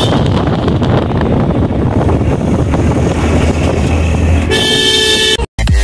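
Wind and road noise from a moving road vehicle with its window open, a steady rumble with a horn sounding for about a second near the end; the sound then cuts off suddenly.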